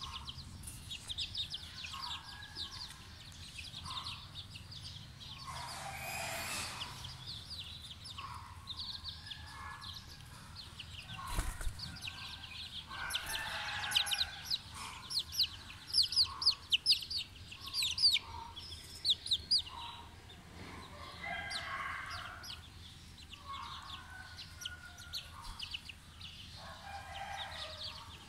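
A flock of young chickens peeping: many short, high-pitched, falling peeps, busiest around the middle, mixed with lower clucking calls every few seconds.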